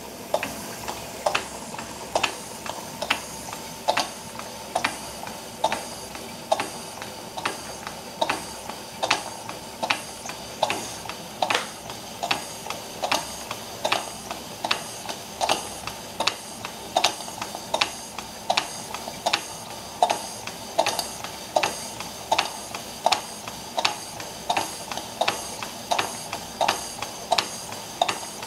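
Model steam beam engine running slowly under steam, giving an even mechanical tick a little more than once a second over a steady hiss of steam.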